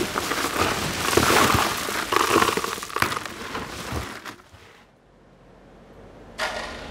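Ice cubes poured from a bag into a cooler, clattering and crunching onto plastic zip-top bags, then hands pushing through the loose ice. The clatter fades out after about four seconds, and a steady hum begins near the end.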